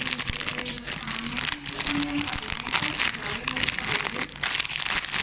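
Plastic packaging crinkling and rustling as a squishy toy is unwrapped from its bag.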